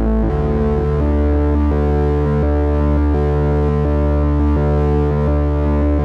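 KORG Monologue analog monophonic synthesizer playing a run of low notes, the pitch changing about every half second, run through a Donner Yellow Fall delay pedal.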